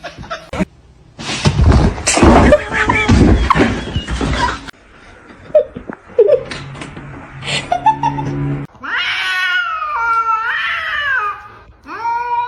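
A domestic cat giving two long, drawn-out meows with wavering pitch in the second half, after a few seconds of loud, noisy sound.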